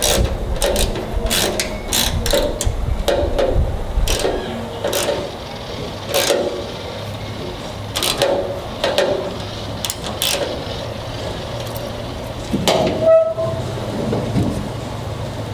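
Repeated metal knocks and clanks of a pickup tailgate being worked and tugged to test a hose-clamp theft lock on its handle. About thirteen seconds in, a brief horn-like tone sounds, the loudest moment.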